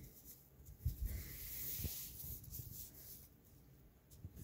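Handling noise: a few soft bumps and a light rustle as small model car wheels and the cloth under them are handled.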